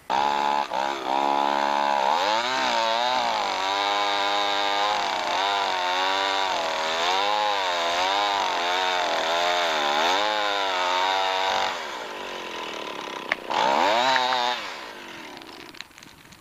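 Two-stroke chainsaw running at high revs, its pitch rising and falling as the chain cuts into a tree trunk. Near the end it drops to a lower speed, revs up once briefly and dies away.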